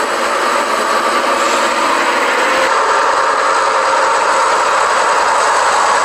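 Military trucks driving with their engines running: a loud, steady mix of engine and driving noise.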